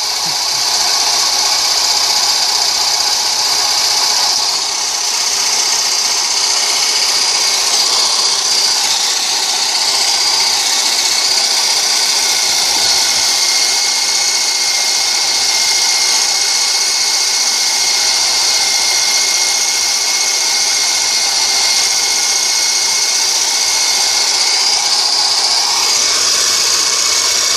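Electric drill running at a steady high speed as the drive of a homemade lathe, spinning a piece of oak stock, with a steady high whine over a hiss.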